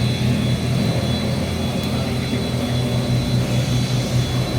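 A 55 mm plastic recycling extruder driven by a 20 HP electric motor, running steadily: a continuous low machine hum.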